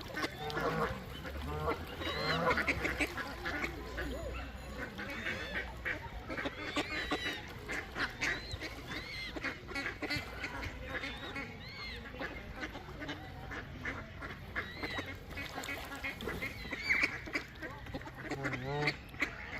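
A large flock of mallard ducks quacking, many calls overlapping continuously.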